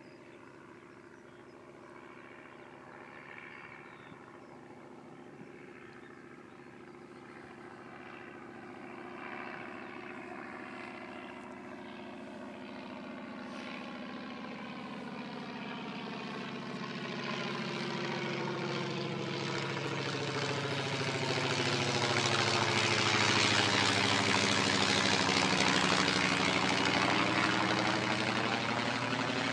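Propeller biplane's piston engine and propeller droning steadily, growing louder as the aircraft approaches and passes nearly overhead, loudest near the end.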